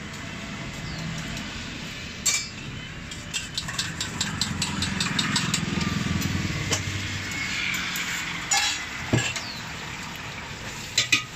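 Metal cooking utensils clinking and knocking against scallion-pancake frying pans: a quick run of light clicks in the middle and a few louder knocks near the end, over a steady low hum.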